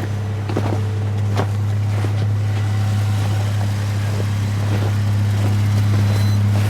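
A vehicle engine running steadily with a constant low drone that grows slightly louder toward the end, with a few faint clicks over it.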